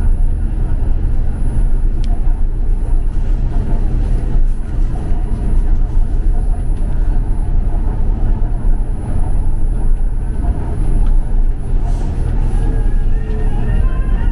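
Gimpo Goldline light-rail train running between stations: a steady, loud low rumble inside the carriage. Near the end, a short melodic chime begins.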